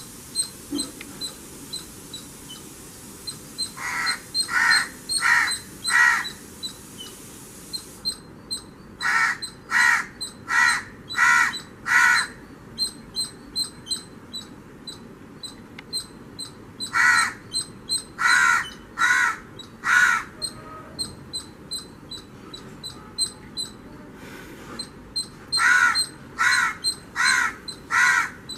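Crow cawing in four bouts of four or five caws each, about one and a half caws a second, with pauses of several seconds between the bouts.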